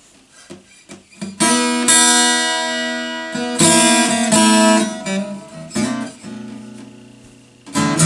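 Acoustic guitar played solo as an intro to a blues song: a few soft plucked notes, then loud strummed chords that ring out about a second and a half in and again past three and a half seconds. It eases into quieter picking before another sharp strum near the end.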